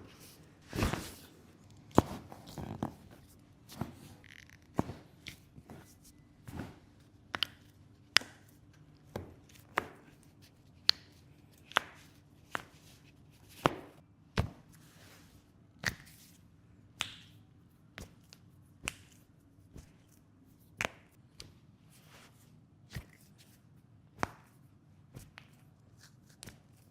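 Hands striking a patient's back in a steady series of sharp slaps, about one a second, some louder than others.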